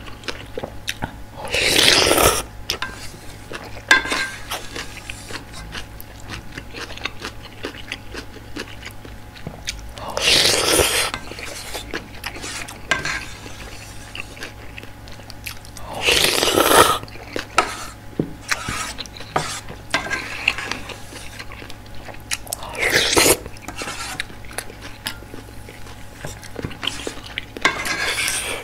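Close-miked eating of spicy instant ramyeon: five loud, short slurps of noodles, roughly one every six seconds. Between them come chewing and small clicks of the spoon against the aluminium pot.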